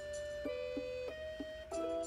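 Background music: a light instrumental tune of separate pitched notes, about two to three new notes a second.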